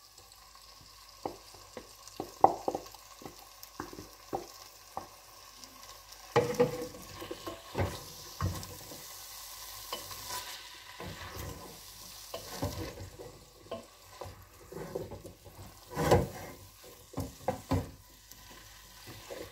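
Wooden spoon stirring chickpeas and cooked cavolo nero in an enamel pot, knocking and scraping irregularly against the pot, over a light sizzle of the frying soffritto.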